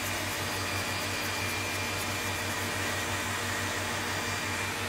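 Electric stand mixer running at full speed, whisking egg whites: a steady motor whirr with a low hum and a faint high whine.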